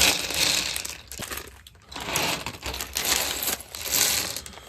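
Plastic crinkling in several short bouts with light clicks, as a freshly opened bag of Lego Technic pieces is handled.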